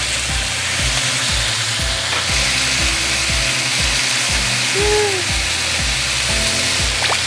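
Marinated bone-in beef short ribs (LA galbi) sizzling in a frying pan with a lot of oil: a steady hiss, while metal tongs move the pieces.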